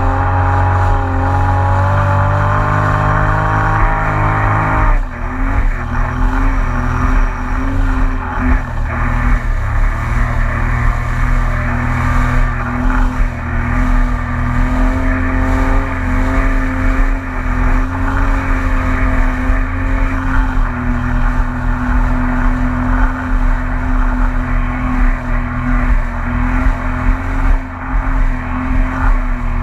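The three-cylinder four-stroke engine of a 2019 Yamaha EX WaveRunner jet ski rises in pitch under throttle. About five seconds in it drops suddenly as the throttle comes off, then runs steadily at a lower pitch.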